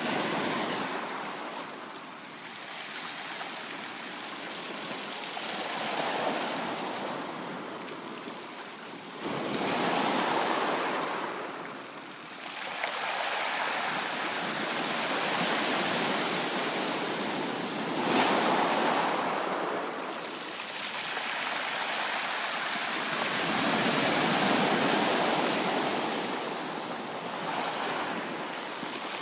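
Ocean waves breaking and washing up a beach, the surf rising and falling in surges every few seconds.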